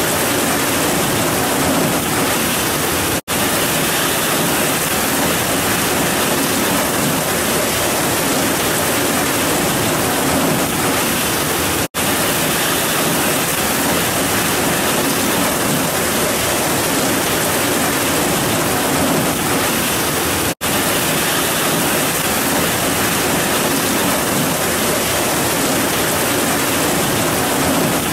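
Heavy rain pouring steadily onto grass and trees as a dense, even hiss. It cuts out for a split second three times.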